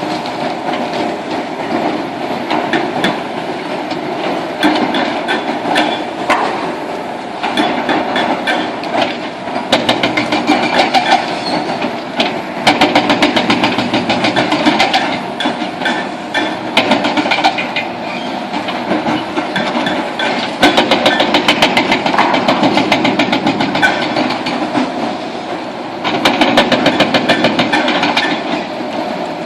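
Demolition excavator breaking up a concrete bridge: a dense, continuous clatter and crunching of concrete and steel, growing louder in several stretches.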